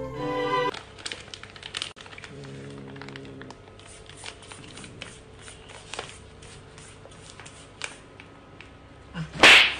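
Clear plastic bag of small dried fish crinkling and crackling as a cat paws and grabs at it, many small irregular crackles. Near the end comes a single loud, short burst of noise.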